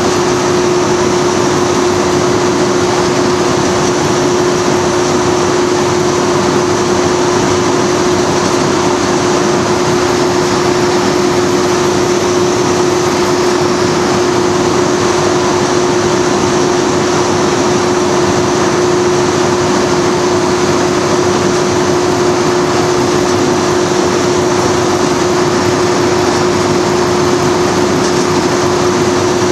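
Inside the cab of Class 37 diesel-electric locomotive 37905, its Ruston diesel engine running steadily as the train travels along the line: a loud, even drone with one constant hum running through it.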